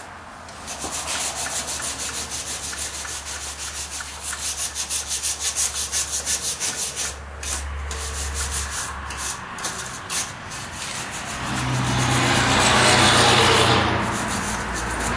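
Hand scrubbing of a blacksmith's vise just out of an electrolysis rust-removal bath, in quick, even strokes about three or four a second. Near the end a louder steady rushing noise with a low hum takes over for a few seconds.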